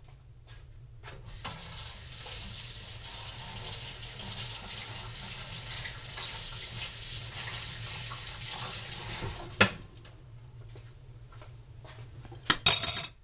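Kitchen tap running into a sink as hands and a spoon are rinsed under it, for about eight seconds, ending with a sharp knock. Near the end, a quick rattling clatter.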